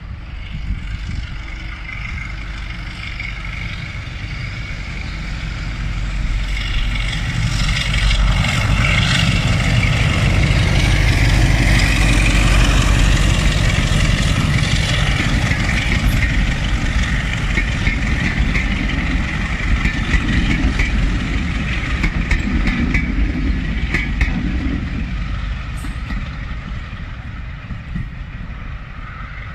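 Class 33 diesel-electric locomotive, with its Sulzer eight-cylinder diesel engine, working a passenger train past. The engine grows louder as the locomotive approaches and is loudest as it goes by. As the coaches roll past there are sharp wheel clicks, and the sound fades as the train moves away.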